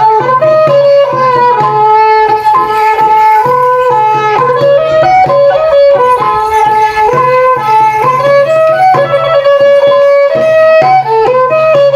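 Khmer pinpeat (ngũ âm) ensemble music accompanying a yak masked dance: a fast melody of short pitched notes over a steady low drone, with drum strokes.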